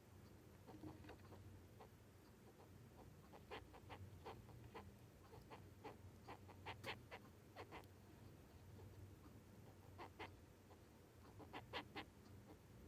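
Male Japanese rhinoceros beetle making its courtship sound: faint, short squeaky chirps, rubbed out in irregular clusters of a few at a time.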